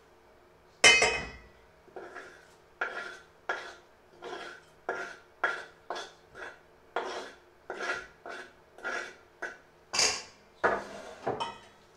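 Metal spoon scraping chopped food off a wooden chopping board in short, regular strokes, about two a second, into a stainless steel mixing bowl. A ringing clink of spoon on the steel bowl comes about a second in, and another strong clink near the end.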